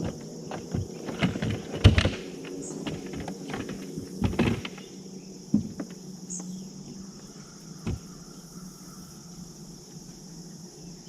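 Steady high-pitched chorus of crickets, with a run of knocks and scrapes in the first few seconds, loudest about two seconds in and again at four and a half, then a few lighter taps.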